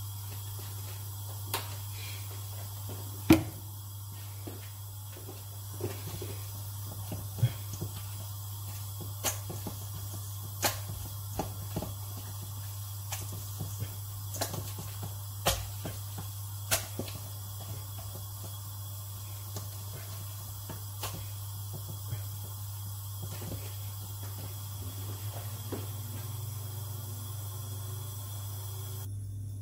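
Gloved hands working olive oil and seasoning into sea bass fillets in a stainless steel bowl: scattered clicks and knocks, the loudest about three seconds in, over a steady low hum.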